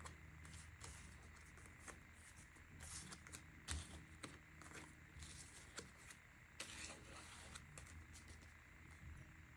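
Tarot cards being gathered up off a wooden table and shuffled by hand: faint, irregular soft clicks and rustles of card on card, with one sharper tap a little past a third of the way in and a longer riffle-like rustle about two-thirds in.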